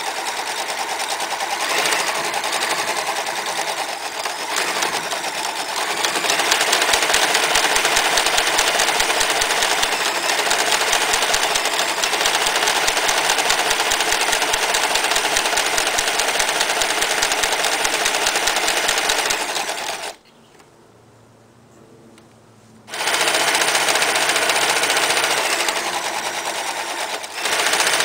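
Frister & Rossmann 503 electric sewing machine running at speed, stitching through denim with a fast, even stitch rhythm. About two-thirds of the way through it stops for a few seconds, then runs again.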